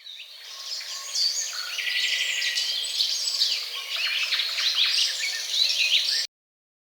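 Several songbirds chirping and singing over one another in quick, overlapping calls and trills. The sound cuts off abruptly about six seconds in.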